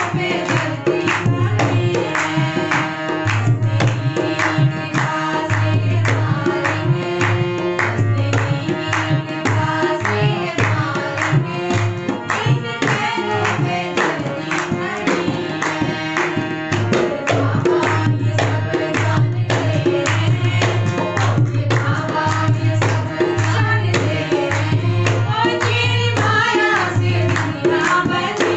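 Devotional bhajan sung by a woman to her own harmonium, with a two-headed dholak drum beating a steady rhythm and hand clapping along.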